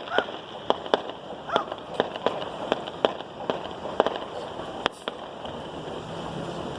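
Fireworks going off in a rapid, irregular run of sharp bangs, about a dozen in the first five seconds, then thinning out.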